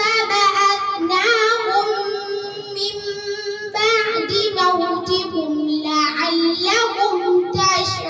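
A young girl reciting the Quran in a melodic chant, drawing out long held notes in phrases with short breaks between them.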